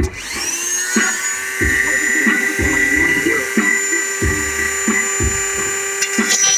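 Small corded rotary tool spinning up with a quickly rising whine and then running at a steady high pitch as its bit grinds along the edge of a machete blade to sharpen it.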